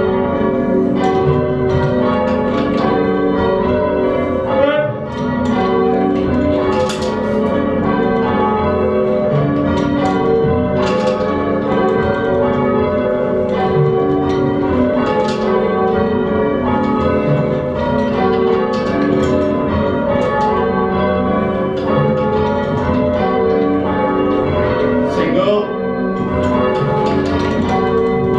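A ring of five church bells in change ringing, the bells striking one after another in a steady, unbroken rhythm.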